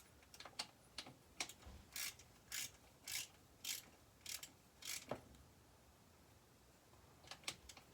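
Hand ratchet wrench clicking in a run of short back-strokes, about two a second, with a few lighter clicks before and after.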